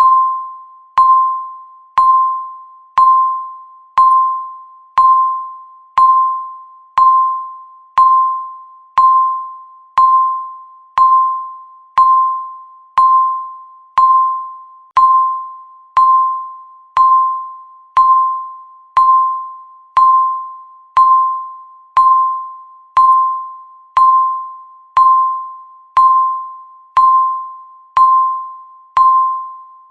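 Countdown timer's tick sound: a single mid-pitched electronic ding that strikes sharply and rings away, repeating steadily once every second.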